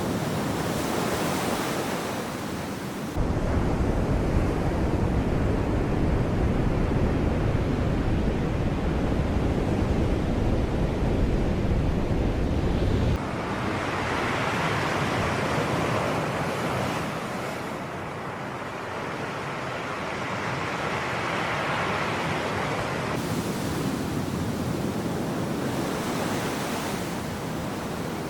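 Sea surf washing and breaking, a steady rushing noise with wind on the microphone. A heavy low rumble sets in abruptly about three seconds in and cuts off just as abruptly some ten seconds later, after which a brighter hiss of surf swells and fades.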